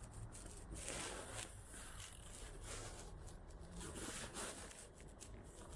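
Irregular soft scuffing and rustling from someone walking, with a steady low rumble underneath.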